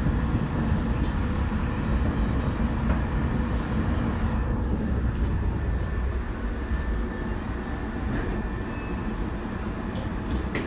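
415 series electric train running, a steady rumble of wheels on rail and running gear heard from inside the car.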